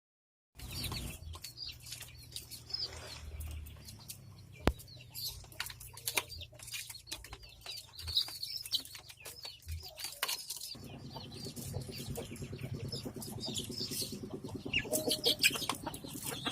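Chickens clucking and chirping, with scattered knocks and rustles.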